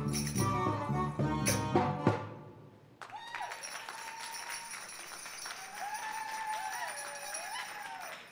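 Synth accordion and darbuka music ending on a final drum beat about two seconds in. After a short pause, the audience applauds, with a few drawn-out cheering voices.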